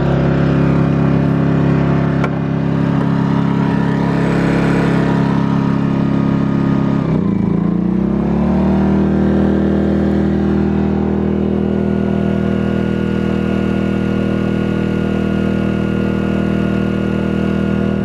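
Pulsar G2319N inverter generator engine running steadily at its 4,100 RPM idle. About seven seconds in it dips briefly, then climbs to a slightly higher, steady pitch near 5,000 RPM.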